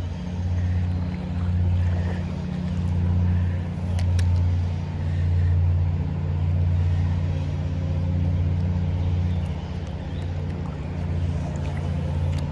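A steady low motor hum of several tones that swells and fades about every second and a half.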